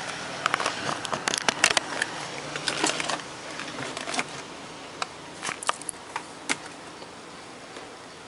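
Handling noise from a digital multimeter and its test probes: a quick run of sharp clicks and knocks in the first three seconds, then a few scattered ones, over a steady faint hiss.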